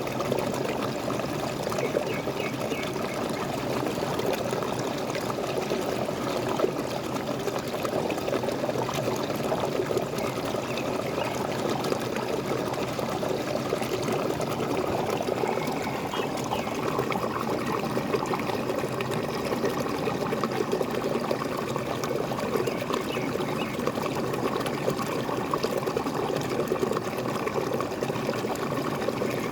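Small waterfall pouring and splashing steadily, an even rush of falling water.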